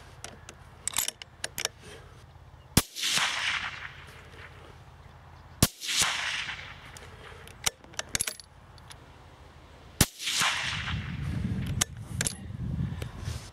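Three shots from a suppressed .243 Browning X-Bolt rifle fitted with a Wildcat Evolution sound moderator, about three seconds and then four and a half seconds apart, each trailing off over about a second. Light clicks sound between the shots, and a low rumble comes near the end.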